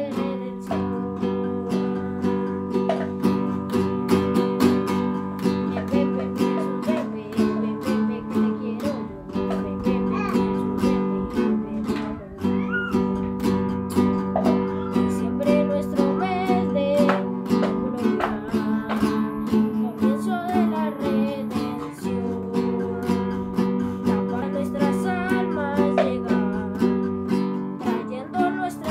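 Nylon-string classical guitar strummed in a steady rhythm of chords.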